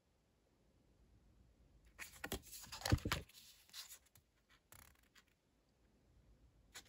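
Thick matte cardstock oracle cards sliding and rustling against each other as they are moved from the front of the hand-held deck to the back. A few short scrapes begin about two seconds in, the loudest about three seconds in.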